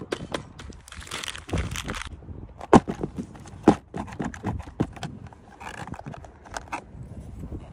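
Clear plastic packaging crinkling as it is handled, then a run of sharp plastic clicks and knocks from a hobby RC drift car's plastic shell and a small cover on it being worked by hand. Two louder knocks come about three and four seconds in.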